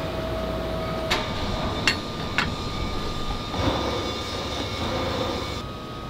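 Foundry mold rollover machine running with a steady hum while a steel flask holding a sand mold is turned over in its ring, with three sharp metal clanks about one, two and two and a half seconds in.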